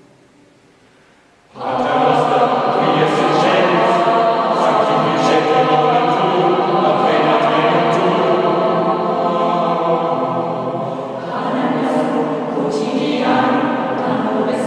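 Mixed chamber choir singing unaccompanied in a reverberant church. After a short pause in which the echo of the last chord dies away, the full choir comes in together about a second and a half in and holds loud sustained chords, with sharp consonants cutting through now and then.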